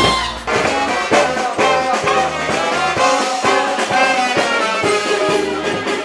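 Swing band playing, with horns leading over piano and drums and a steady beat.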